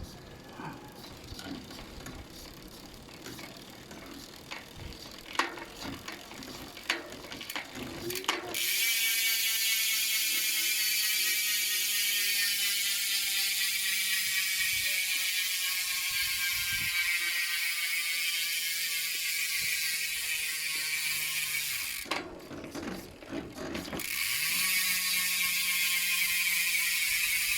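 Speedone Torpedo rear hub freehub ratcheting loudly as the wheel freewheels, a dense buzz of pawl clicks that slowly drops in rate as the wheel loses speed. It starts after several seconds of scattered knocks, stops briefly, then starts again near the end. The owner puts the loudness down to the grease having worn in after about 300 km of riding.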